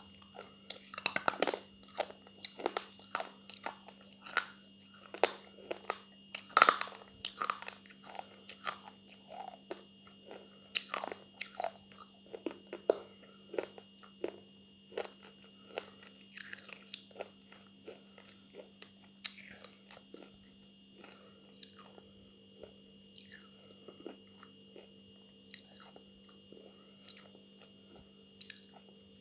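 Biting and chewing brittle pieces of eating slate pencil: sharp crunches, close and dense at first, then thinning to slower, quieter chewing.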